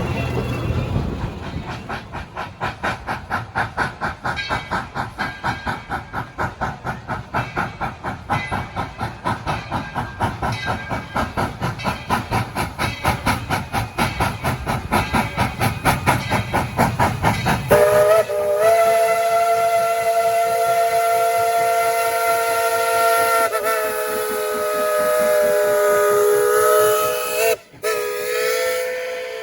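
Steam locomotive No. 12, a 4-6-0, working a train with a steady beat of exhaust chuffs, a few a second. About two-thirds of the way through, its whistle sounds one long blast of several notes at once, broken off for an instant near the end.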